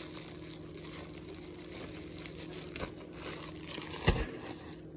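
Plastic bread bag crinkling as slices of sandwich bread are handled and pulled out, with a sharp click a little before three seconds in and one loud thump about four seconds in.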